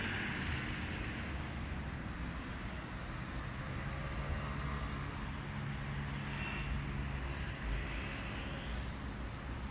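City road traffic: a steady low rumble of vehicle engines, with a faint engine hum in the middle.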